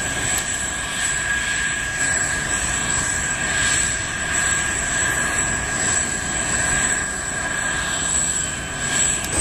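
Jet airliner taking off, its engines running at takeoff power as a steady, even noise.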